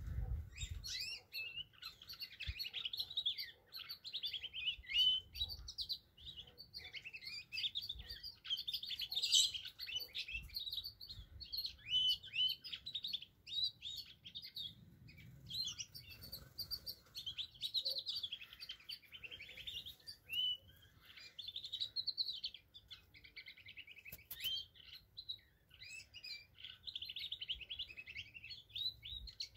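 Canaries singing: long, nearly unbroken runs of rapid trills and chirps, high-pitched, with only brief pauses.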